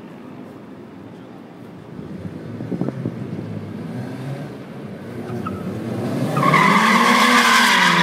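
BMW E36 coupe drifting: its engine revs harder as the car approaches, then from about six seconds in the tyres squeal loudly as it slides sideways, the engine pitch rising and then dropping under the squeal.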